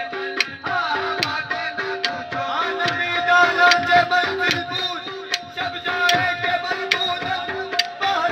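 Qawwali music: tabla playing a fast, steady rhythm under a held note, with a sharp accented stroke a little more than once a second.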